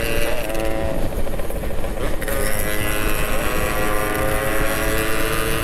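Yamaha RX-King two-stroke single-cylinder motorcycle engine running at road speed. Its pitch shifts with the throttle in the first couple of seconds, then climbs slowly, with wind rumble on the microphone.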